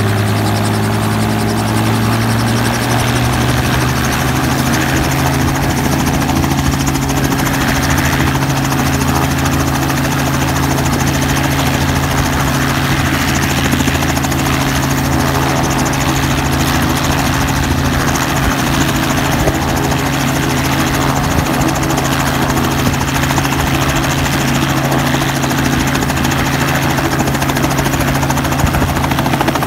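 Robinson R44 light helicopter running on the ground with its main rotor turning, a steady engine and rotor drone. Its pitch rises a little in the first few seconds, then holds steady.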